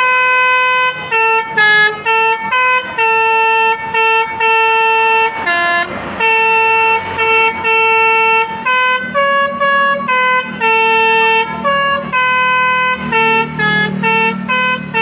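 A bus's telolet basuri musical horn playing a tune: a run of loud pitched horn notes, some short and some held, stepping between a lower and a higher note with brief gaps between them.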